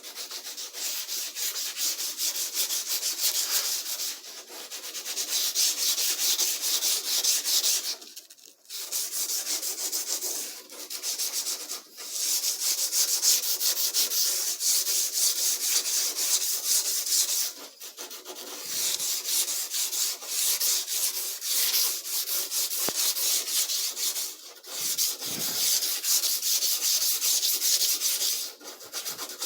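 Sandpaper rubbed by hand over a closet door, a steady scratching sanding noise broken by a few short pauses.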